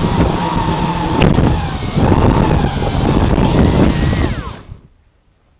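Quadcopter's brushless motors and propellers running hard at full throttle, with a steady whine, heard from the camera slung beneath it; a sharp tick sounds about a second in. Near the end the motors spool down with a falling whine and stop, after the overloaded quad has come down under the camera's weight.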